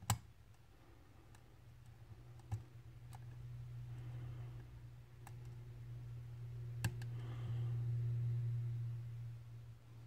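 Metal hook pick working the pins of a brass pin-tumbler lock cylinder held under tension: a few sharp metallic clicks spaced a second or more apart, the loudest at the very start. A low steady hum sits underneath and grows louder toward the end.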